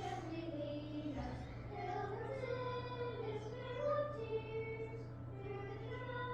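Closing music: a high solo voice singing a slow, wordless-sounding melody, over a steady low hum.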